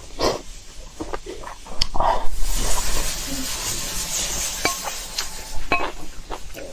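Utensils clicking and clinking against a dish, a few of the clinks ringing briefly, with a hiss through the middle few seconds.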